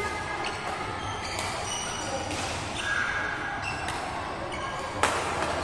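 Indoor badminton hall: shoes squeaking briefly on the court floor and soft shuttlecock hits, then one sharp racket-on-shuttlecock strike about five seconds in.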